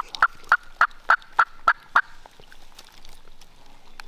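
Wild turkey calling: a run of about eight short, evenly spaced notes, roughly three a second, that stops about two seconds in.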